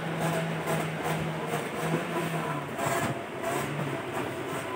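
A steady low engine-like drone whose hum breaks off briefly now and then, over a bed of background noise with faint scattered clicks.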